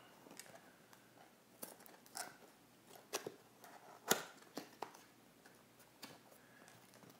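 Faint clicks and scrapes of a small cardboard box being handled and its top flap pried open, with scattered taps and the sharpest one about four seconds in.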